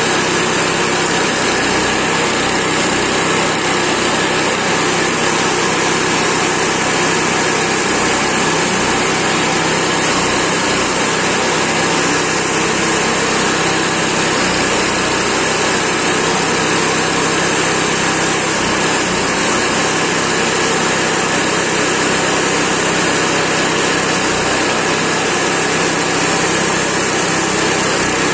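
Chipper shredder's small engine running steadily, shredding leafy tea branches fed into the hopper.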